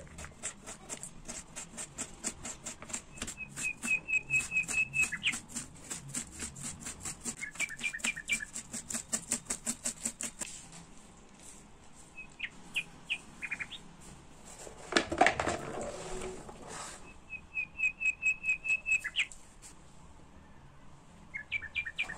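Knife chopping on a cutting board in quick, regular strokes through the first half, cutting potatoes and greens. A small bird chirps short trills in the background, and a brief louder scrape or rustle comes about two-thirds of the way through.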